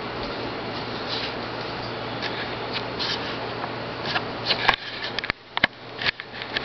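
A steady background hiss with a low hum, which cuts out a little under five seconds in. After it come a few sharp clicks and short rustles as the camera is handled.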